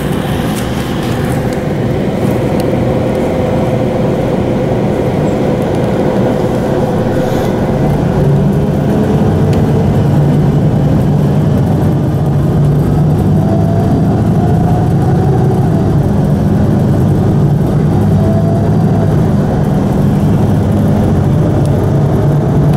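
City bus engine and drivetrain heard from inside the cabin as the bus pulls away from a stop and gathers speed. The engine note grows louder about a third of the way in, with a faint whine that rises in pitch now and then.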